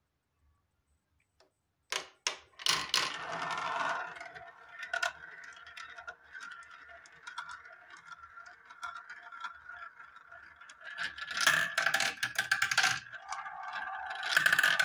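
Two plastic marbles rolling through a clear plastic marble-run track: they clatter in about two seconds in, then roll around a plastic funnel with a continuous rattling whirr, with louder clattering bursts in the second half.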